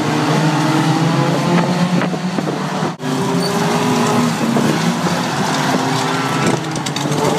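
Several banger-racing car engines revving and running hard together, their pitches rising and falling, over a steady rush of tyre and track noise. The sound drops out for an instant about three seconds in.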